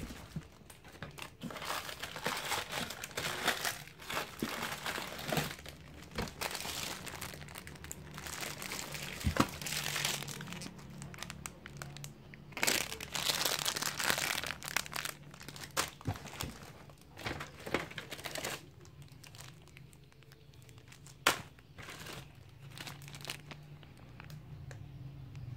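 Clear plastic bags crinkling and rustling as bagged toys are handled and taken out of a cardboard box, in irregular bursts with a couple of sharp knocks.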